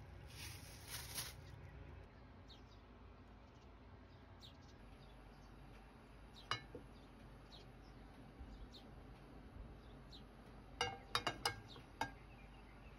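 Quiet kitchen with a faint rustle at the start, a single sharp click about six and a half seconds in, and a quick run of sharp clinks near the end, as of kitchenware being handled.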